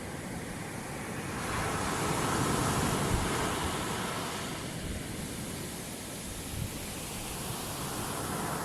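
Ocean surf: a wave rushes in, building about a second and a half in and dying away by about five seconds, over a steady wash of water.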